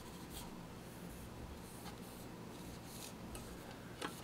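Faint soft rubbing of an oiled cloth rag wiping the steel action slide bars of a Mossberg 500 pump shotgun, in several light strokes, with a small tick about four seconds in.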